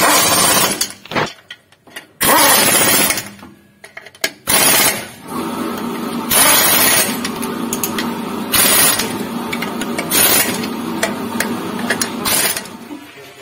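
Power impact wrench run in about seven short bursts, hammering the clutch pressure plate bolts tight against the flywheel. A steady hum runs under the bursts from about a third of the way in.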